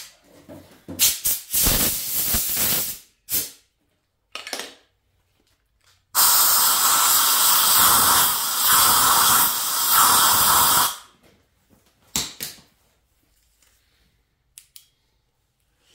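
Compressed-air blow gun hissing in bursts, clearing aluminum shavings out of a freshly tapped head-bolt hole in the engine block: a couple of short blasts, then one long blast of nearly five seconds about six seconds in, and a brief puff near the end.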